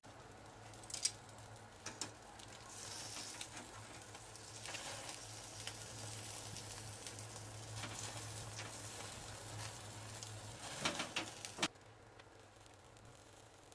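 Amberjack fillet sizzling on a wire mesh grill over a gas burner flame, with sharp pops and crackles about a second in, at two seconds, and a quick cluster near the end before the sizzle cuts off.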